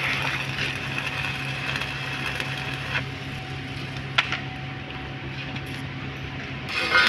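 Stick (SMAW) welding arc crackling as the first capping pass is laid on a pipe joint, stopping about three seconds in. A steady low hum runs underneath, and a sharp click comes about four seconds in.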